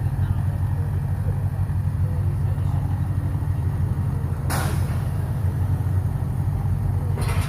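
Ford Escort Mk1 rally car engine running steadily at a low, even idle, with two short hisses about four and a half and seven seconds in.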